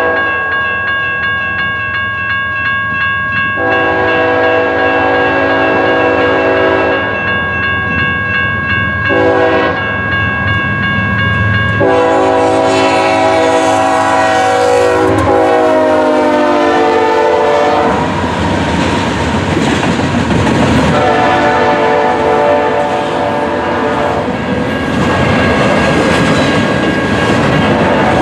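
Freight diesel locomotives sounding their air horn for a grade crossing: two long blasts, a short one, and a long one whose pitch drops as the lead unit passes, then another blast later. This is followed by the engines and intermodal cars rumbling and clattering past, over a steady ringing tone.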